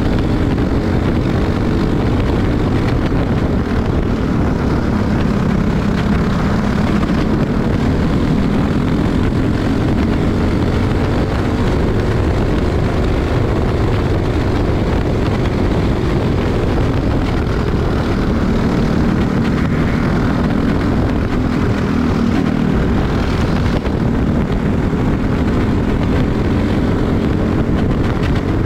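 Tillotson 212 single-cylinder four-stroke kart engine running hard, heard from on board with wind rush. Its note rises and falls a little as the kart speeds up on the straights and slows for the turns.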